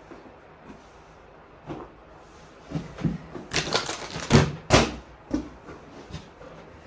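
A cluster of clicks, knocks and rustling from a person moving about and sitting down close to the microphone, loudest as two sharp knocks a little past halfway.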